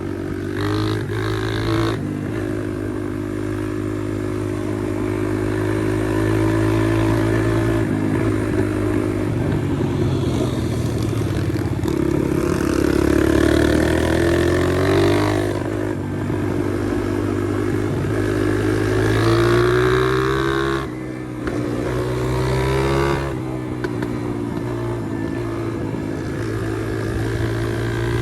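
Pit bike's small single-cylinder four-stroke engine running on a ride, its revs rising and falling as it accelerates and shifts, with a brief drop as the throttle is closed about three-quarters of the way through.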